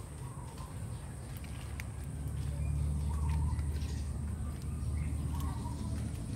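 Outdoor ambience: a low rumble that swells for a few seconds in the middle, with a few faint short bird chirps over it.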